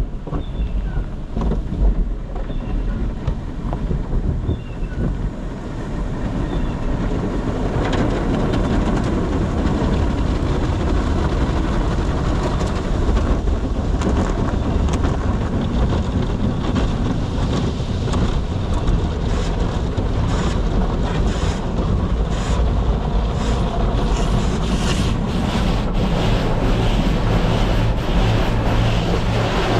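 Tunnel car wash heard from inside the car: a steady rush of water spray with cloth wash equipment swishing and slapping against the body, over a low rumble. It grows louder about six to eight seconds in.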